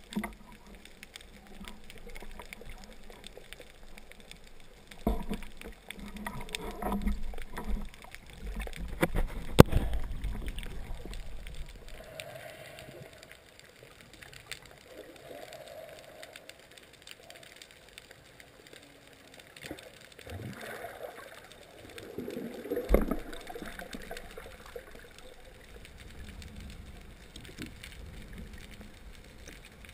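Water sloshing and gurgling around the camera during a spearfishing dive, with a few sharp knocks, the loudest about ten seconds in and another about 23 seconds in.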